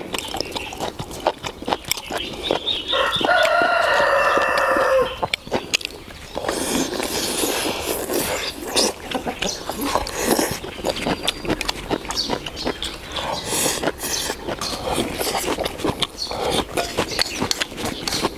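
A rooster crows once, a single long call of about two and a half seconds that drops in pitch at the end. Around it are the sharp clicks of chopsticks against bowls and the sounds of people eating.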